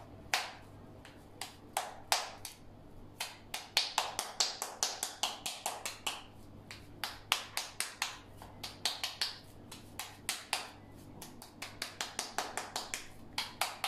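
Ground chicken mince being thrown and slapped from palm to palm. It makes a run of quick, sharp slaps, a few a second, sparser at first and more frequent from about three seconds in. The mince is worked by hand this way to make it more elastic.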